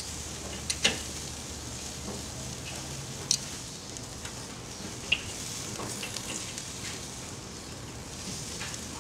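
Marinated chicken kebabs sizzling over charcoal on a kettle grill, a steady hiss. A few sharp metallic clicks, twice about a second in, then once past three seconds and once around five, as metal tongs knock against the grate and skewers while turning them.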